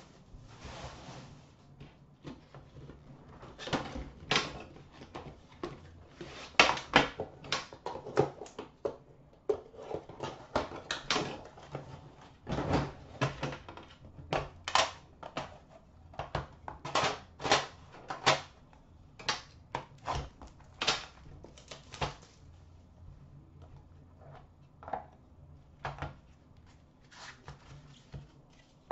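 Irregular clicks, taps and rustles of a sealed hockey card box being unwrapped and opened by hand: shrink-wrap plastic crinkling and the cardboard box and its lid knocking and sliding. The taps are dense through most of the stretch and thin out over the last several seconds.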